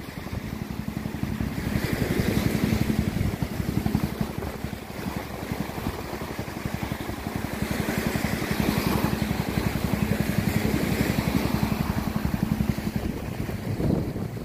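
Small engine of a round basket boat (coracle) running steadily as it motors through the surf, with waves washing behind it.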